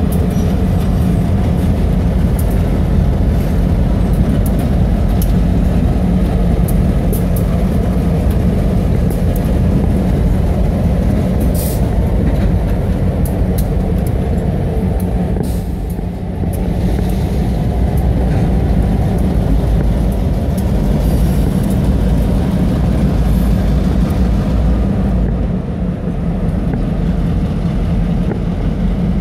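Diesel locomotives running as they roll slowly past: a loud, steady engine drone with a low hum.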